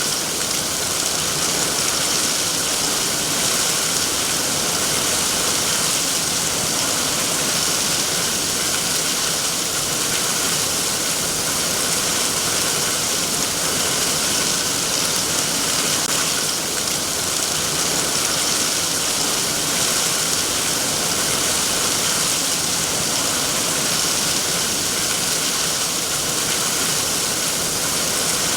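Heavy rain pouring down steadily, a dense even hiss that never lets up.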